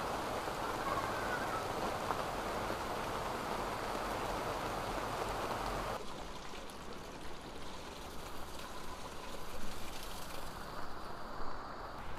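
Heavy rain falling steadily, a dense even hiss that drops away suddenly about halfway through. After that comes a quieter stretch of running water with a few light clicks and knocks.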